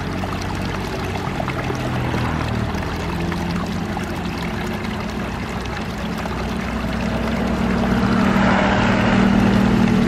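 Small waterfall pouring over a rock lip into a shallow pool, a steady splashing rush of water. Low sustained tones run underneath and grow louder near the end.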